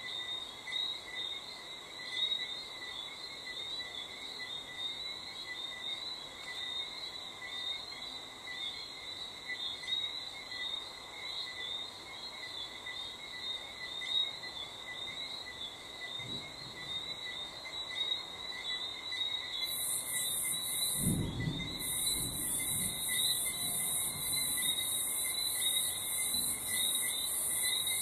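Night chorus of crickets trilling steadily. About two-thirds of the way in, a louder, very high-pitched pulsing insect call starts up and keeps going, and a brief low rumble comes just after it.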